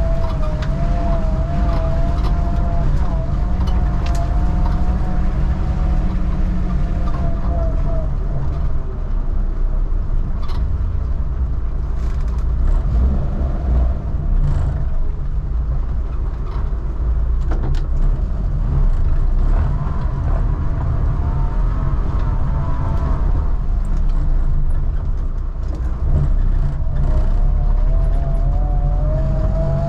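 1952 Willys Wagon driving: a steady low engine and road rumble, with a whining tone that wavers in pitch, fades out and returns, rising, near the end.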